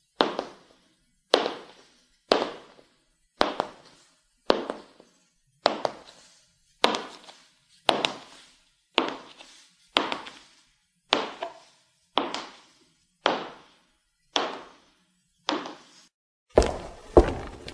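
High-heeled shoes walking on a hard floor: slow, even, echoing heel clicks, about one step a second. Near the end the steps turn quicker and louder.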